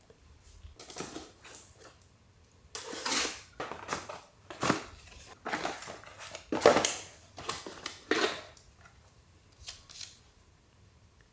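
Plastic shrink-wrap being torn off a small cardboard product box and the box opened and handled: a string of irregular rustling, crinkling bursts over several seconds, the loudest a little past halfway.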